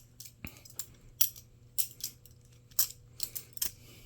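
Balisong trainer being flipped, its metal handles clicking and clacking against each other as they swing around the pivots. A run of sharp clicks comes at irregular intervals, about eight in all.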